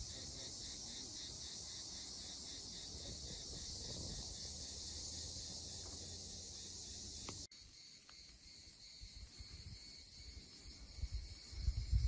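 Faint, steady chorus of insects with a fast, even pulsing, which stops abruptly at a cut about seven and a half seconds in. After it comes a quieter outdoor ambience with a few low thumps near the end.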